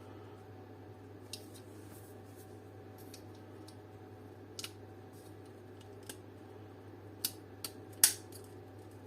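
Light clicks and taps of small brass contacts being handled and pressed into a plastic dome light housing, the loudest a sharp click about eight seconds in, over a steady low hum.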